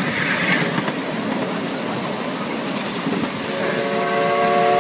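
Miniature steam train running along its track with a steady rumble; about three and a half seconds in its whistle sounds a long, chord-like toot of several notes at once.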